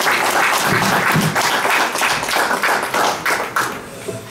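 Small audience clapping, the applause dying away near the end.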